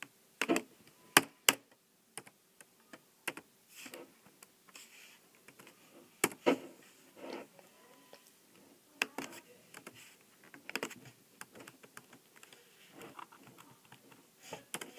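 Typing on a laptop keyboard: irregular key clicks with short pauses as a word is deleted and retyped, a few taps louder than the rest.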